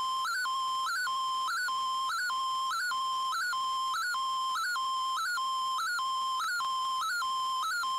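MFSK digital-mode picture transmission heard through an Icom IC-R8600 shortwave receiver: a steady high whistling tone that hops briefly higher in pitch about one and a half times a second as the image is sent line by line.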